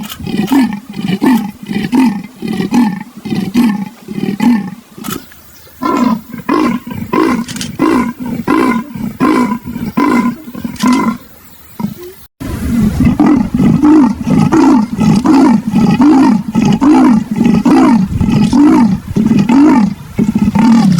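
Leopard giving its rasping sawing call: a long series of rough grunts, about two a second, breaking off briefly a little past halfway and then starting again.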